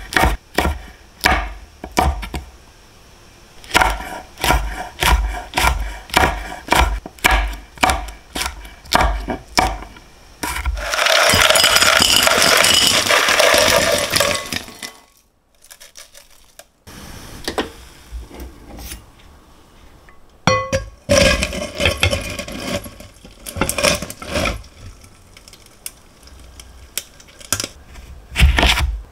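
Knife chopping on a wooden cutting board, about two strokes a second, with a few seconds of steady hiss partway through and a brief gap before the chopping resumes.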